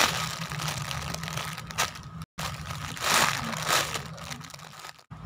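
Clear plastic bag crinkling as the squishy toy sealed inside it is gripped and turned in the hands, in irregular bursts.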